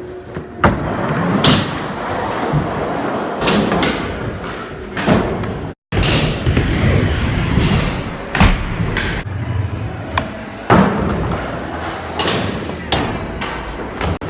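Skateboards rolling with a steady rumble, broken by many sharp clacks and thuds of boards striking and landing on the riding surface.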